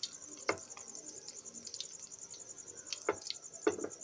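Breaded chicken cutlets frying in hot oil in a pan, with a few sharp pops about half a second in and again around three seconds. A cricket chirps steadily at a high pitch in the background.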